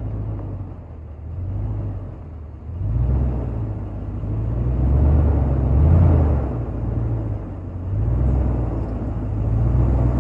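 Lexus LX470's 4.7-litre V8 engine working at low speed on a rocky climb, the throttle swelling and easing in surges, loudest about six seconds in.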